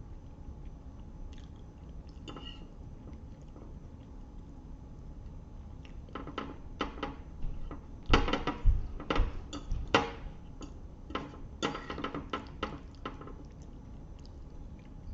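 Close-miked mouth sounds of eating spaghetti: a burst of wet chewing and smacking from about six to thirteen seconds in, after a few quieter seconds.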